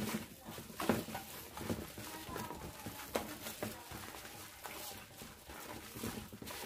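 Chiffon cake batter being folded by hand in a metal bowl: irregular wet squelches and soft slaps, with a few sharper clicks.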